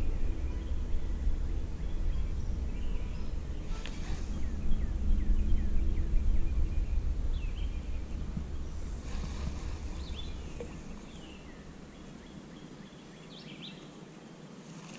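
Outdoor ambience: a low rumble of wind on the microphone that dies away about two-thirds of the way through, with scattered short bird chirps.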